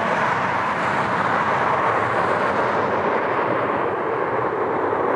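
Jet airliner engine noise, a loud, steady rush with no breaks; the highest part fades a little about three seconds in.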